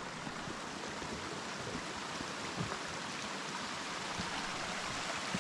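Flowing water rushing steadily, a constant even hiss.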